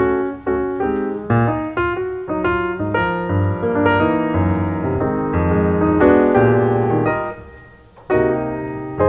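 Piano music playing a flowing melody over chords, fading briefly near the end before a new phrase starts.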